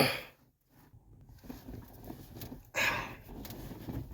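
A man's strained, wordless vocal sounds during a struggle: a loud cry falling in pitch at the very start, then faint rustling, and a sharp breathy exhale or grunt about three seconds in.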